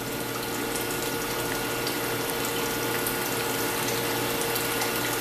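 Ozonated water running steadily from the ozone water generator's outlet into a stainless steel sink, with a faint steady hum underneath.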